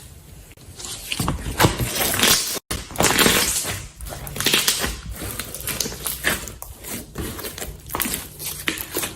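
Slime being handled: squishing and crackling noises that swell and fade unevenly, with a sudden cut a little under three seconds in.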